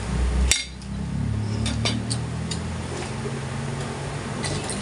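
Eating sounds: a spoon clinks sharply against a steel plate about half a second in, then a few lighter clicks of utensils follow, over a steady low hum.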